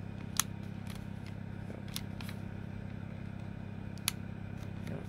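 Sharp plastic clicks as the Aiwa RX308 cassette walkman's controls and case are pressed and slid by hand: a few clicks, the loudest just under half a second in and about four seconds in. A steady low hum runs underneath.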